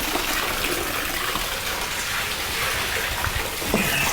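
Drinks pouring in steady streams into a kitchen sink partly filled with liquid: box wine running from its tap and cans of hard seltzer being emptied, a continuous splashing.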